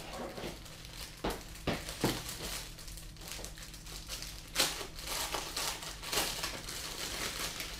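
Plastic packaging crinkling and rustling in irregular bursts as a packaged apron is handled and opened.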